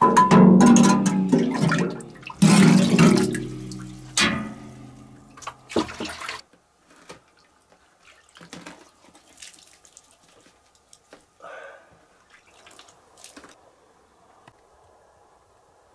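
Water pouring and splashing in a few heavy surges, the loudest at the start and about two and a half seconds in, with shorter splashes near four and six seconds. Then only small scattered splashes and drips.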